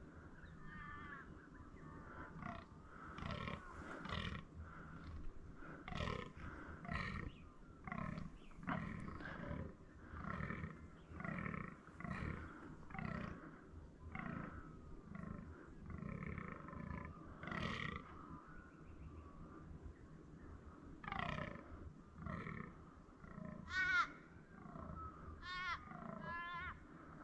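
A fallow buck croaking in the rut: a long run of short grunts about one a second, breaking off briefly and then starting again. Short warbling calls can be heard near the end.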